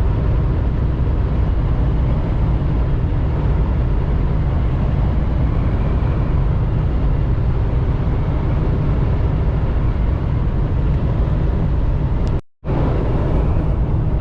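Semi-truck cab at highway speed: a steady low drone of engine and road noise mixed with wind noise. The sound cuts out completely for a split second about twelve and a half seconds in, then resumes.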